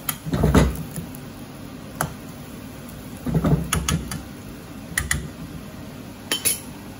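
A metal spoon stirring thick spinach curry in a black wok, with short scraping rubs and several sharp clinks of spoon against pan.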